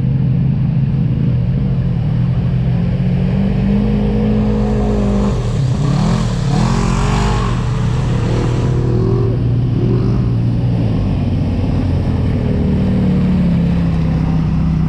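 Off-road vehicle engines: one runs steadily while another revs up and down, loudest from about six to eight seconds in, where a rush of noise joins the revving.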